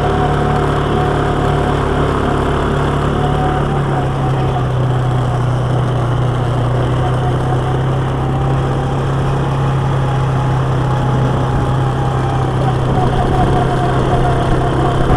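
Quad bike engine running steadily in low range as it drives along a gravel track, its note dropping a little about four seconds in.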